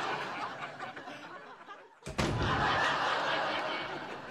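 Sitcom studio audience laughing. One wave of laughter dies away over the first two seconds, then a fresh burst starts abruptly about two seconds in and slowly fades.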